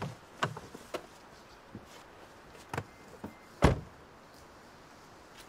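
A few scattered short clicks and knocks, then a car door slammed shut about three and a half seconds in, the loudest sound.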